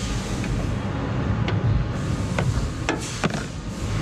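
A handful of sharp metallic clicks and taps as a 12mm spanner works at a Toyota Hilux's bonnet hinge bolts and is handled around the hinge, the two loudest close together near the end. A steady low hum runs underneath.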